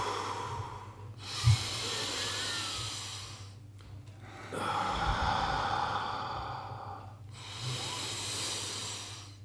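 A man breathing slowly and deeply close to the microphone, four long breaths in and out of about two to three seconds each: diaphragmatic belly breathing with the shoulders kept down.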